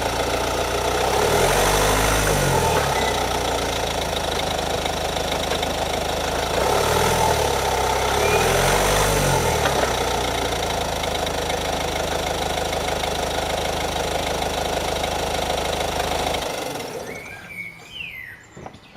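Ford Focus engine running steadily at idle, its note briefly rising and falling about three times, then switched off a couple of seconds before the end.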